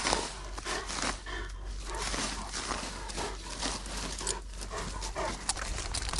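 Kangal shepherd dog close by, making non-barking sounds, with irregular rustling and scuffing throughout.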